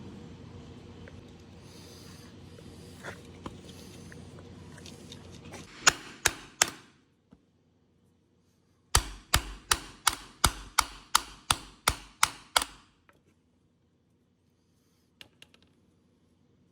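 Hammering: three sharp blows, then after a pause a steady run of about eleven blows at roughly three a second, each ringing briefly.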